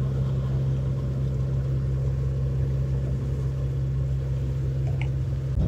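A sailing yacht's engine running steadily as the boat motors along, a constant low drone.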